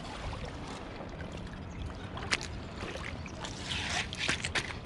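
Shallow water sloshing and splashing around someone wading, with a sharp click about two seconds in and a louder swell of splashing near the end.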